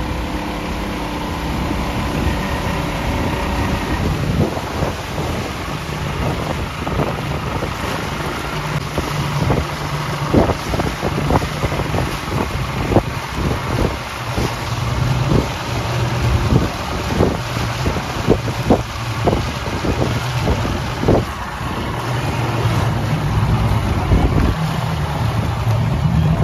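Motorboat running at speed, heard from aboard: a steady engine drone under rushing water and wind noise on the microphone, with a run of sharp thumps through the middle.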